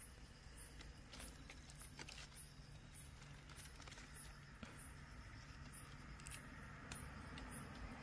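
Faint, very high-pitched insect calls, short chirps repeating evenly about twice a second, with a few soft rustles of grass leaves being handled.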